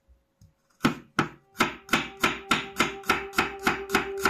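Kitchen knife slicing peeled garlic cloves on a wooden cutting board: a regular run of crisp chops, about three a second, starting about a second in.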